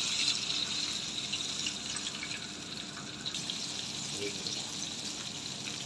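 Flour-coated chicken deep-frying in hot oil in a steel wok: a steady sizzle of bubbling oil.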